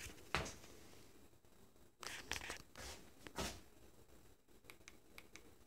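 Faint handling noise in a quiet room: a few short soft rustles and knocks, about half a second, two seconds and three and a half seconds in.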